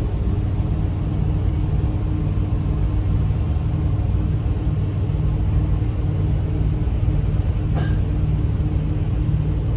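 Passenger boat's engine running underway: a steady low rumble with a constant hum.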